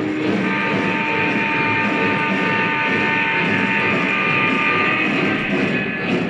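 Multi-chime steam whistle from a Lionel Legacy O-scale steam locomotive's onboard sound system, one long blast of about four and a half seconds starting just after the start, over the rumble of the model train running on the track.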